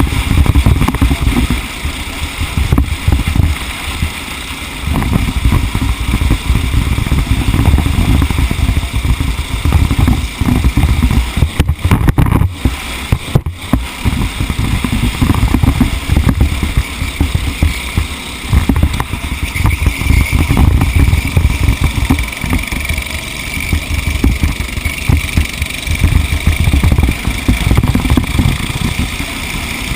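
TaG-class racing kart's two-stroke engine running hard, its note rising and falling in loudness as the revs change, with brief dips about four seconds and twelve seconds in.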